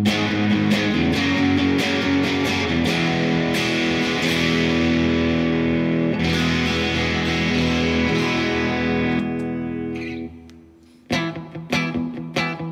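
Maybach Teleman T61 electric guitar played through a small tube combo amp. It plays chords that ring out and fade away, then picks short, quick notes again near the end.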